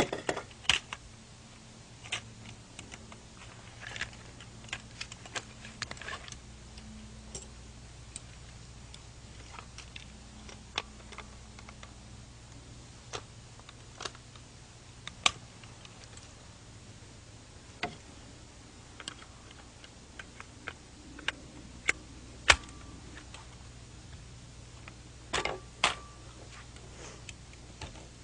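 Scattered clicks, clacks and knocks of a .223 semi-automatic rifle being handled as its wooden stock is taken off and a plastic stock fitted in its place. The sharpest click comes a little past the middle, with a quick run of knocks near the end.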